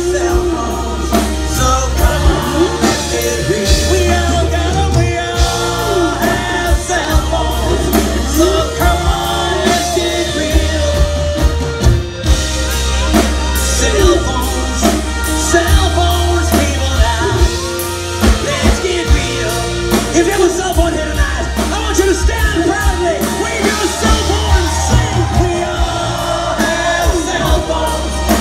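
A live rock band plays with a male lead singer over a steady bass line, drum kit and electric guitars, recorded from within the audience.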